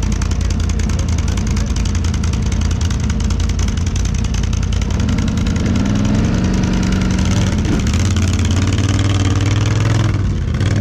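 ATV engines running steadily, with one revved harder about five seconds in and held high as a quad labours up a steep dirt climb.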